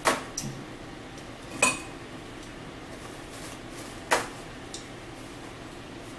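Paper towel sheets being torn off a roll: three short, sharp rips, at the start, about a second and a half in and about four seconds in, with a few lighter rustles between them.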